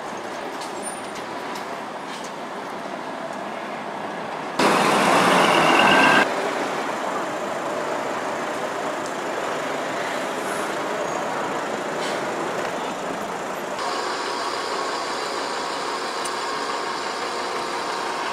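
Diesel buses pulling away and turning, one of them a MAN coach, heard in several short clips joined by cuts. A louder stretch with a steady high squeal lasts about a second and a half, starting about four and a half seconds in.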